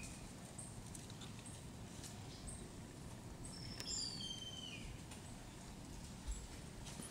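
Forest ambience over a low steady hiss, with a bird giving a short run of high, slightly falling whistled notes about four seconds in, and faint high chips scattered throughout. A soft low bump comes near the end.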